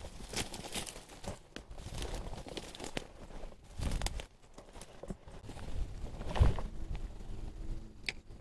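Dry reed stalks and dead grass rustling and crackling as someone pushes through them on foot, with footsteps and a couple of heavier low thumps partway through.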